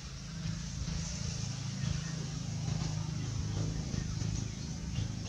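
Low, steady engine rumble of a motor vehicle.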